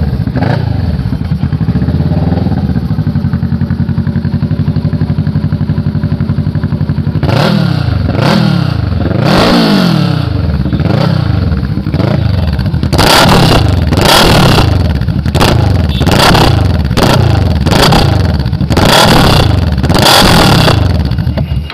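Kawasaki Vulcan S 650 parallel-twin engine running through a Two Brothers Racing full-system exhaust. It idles steadily for about seven seconds, then is revved a few times. Over the last eight seconds comes a quick string of short throttle blips, each rising and falling, louder than the idle.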